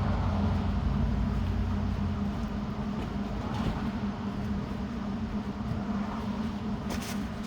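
An engine running steadily, a constant low drone, with a few faint clicks and a short knock near the end.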